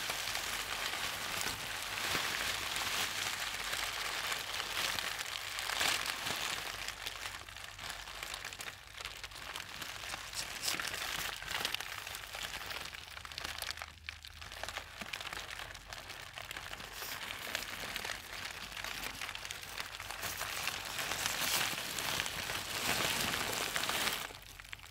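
Steady crackling hiss like rain, swelling and fading, with a faint low hum underneath; it drops away sharply at the very end.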